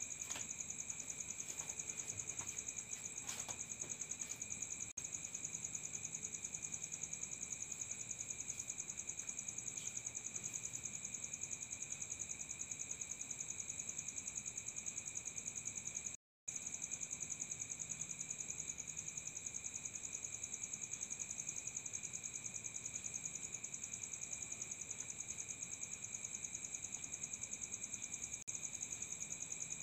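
Insects trilling steadily at a high pitch in a fast, even pulse, with a brief break in the sound just past the middle.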